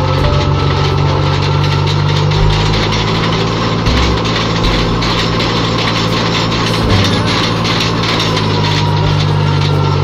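Tractor diesel engine running steadily on a tractor-mounted post-hole auger rig, with a faint steady whine above the engine note.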